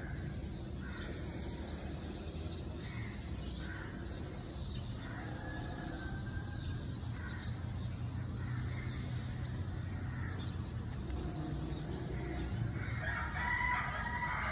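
A rooster crowing near the end, with shorter bird calls earlier, over a steady low background.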